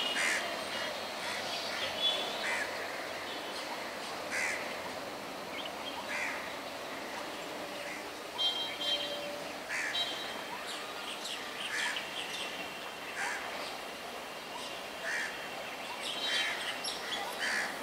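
Birds chirping and calling, short calls every second or two over a steady background noise.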